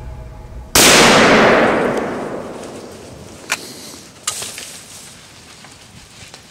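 A single gunshot about a second in, fired at a deer, its report rolling away through the woods for about two seconds. Two sharp clicks follow a few seconds later.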